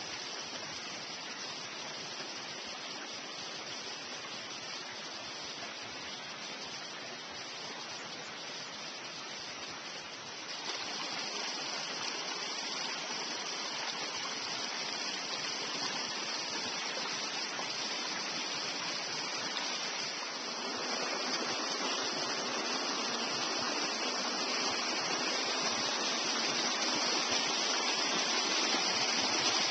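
Small forest creek running over rocks and logs: a steady rush of water that grows louder in two steps, about a third and two-thirds of the way through.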